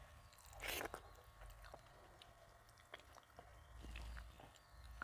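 Faint close-up chewing of a mouthful of rice and dal eaten by hand, with small wet mouth clicks and one louder burst of mouth noise just under a second in.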